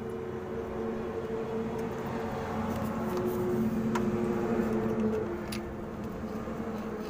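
A steady mechanical hum that wavers slightly in pitch, with a few light metallic clicks about four and five and a half seconds in.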